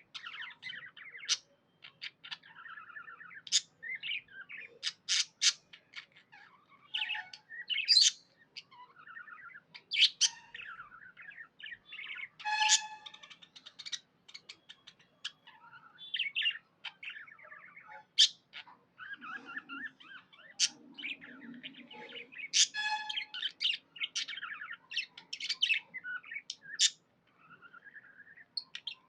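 Budgerigars chirping and warbling continuously, a fast chatter of short chirps with sharp high clicks and squawks mixed in.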